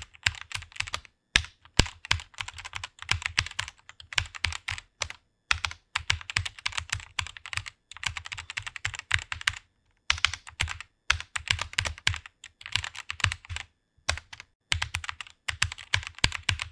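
Typing on a computer keyboard: fast runs of key clicks with brief pauses between bursts.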